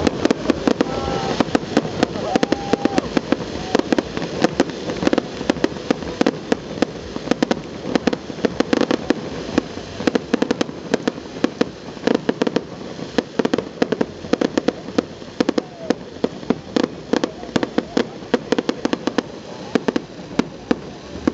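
Aerial fireworks going off: a rapid, irregular run of bangs and crackles, several a second.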